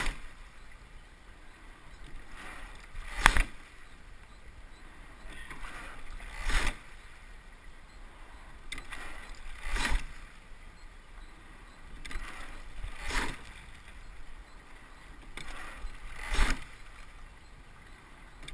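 Double scull being rowed at a steady, unhurried stroke rate: a sharp clunk from the oars in their oarlocks with a swell of water noise around it, repeating about every three seconds, over a steady rush of water along the hull.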